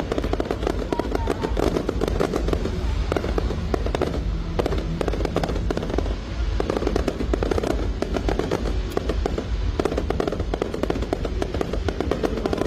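Fireworks display going off continuously: a dense run of bangs and crackles over a low rumble, with music playing along.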